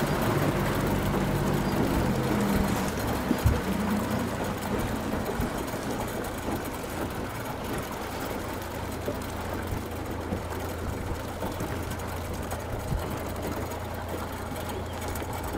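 A small boat's outboard motor running steadily at low cruising speed, with wind and water rushing past the hull. The motor eases slightly after about four seconds, and there is a single knock about three and a half seconds in.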